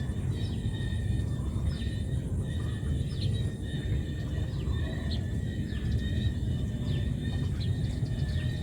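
Outdoor ambience: a steady low rumble like wind on the microphone, a faint steady high hum, and a short high falling chirp repeating about every second or less.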